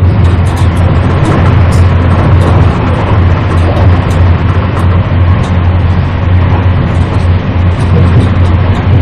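Running noise of a passenger train heard from inside the carriage while moving at speed: a loud, steady rumble with a constant low hum and faint scattered high clicks.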